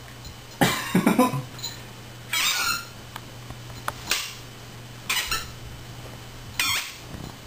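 Squeaky plush bear dog toy squeaking in short bouts as a puppy chews it, five bouts a second or two apart, the first the loudest.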